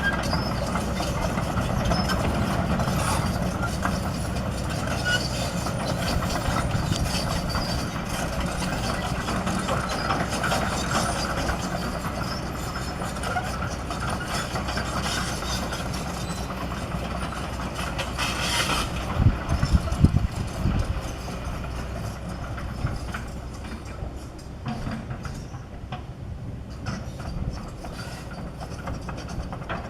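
Kobelco SK200 hydraulic excavator's diesel engine running steadily while the machine works, with a short burst of louder, low knocks and clatter about two-thirds of the way through.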